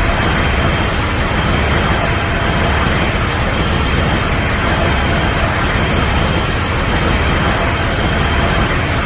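Steady, loud rushing blast of noise over a deep rumble, a Destoroyah monster sound effect, running evenly with no breaks.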